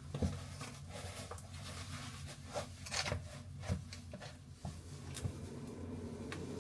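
Soft rustling and handling noises with a few light knocks, over a steady low hum.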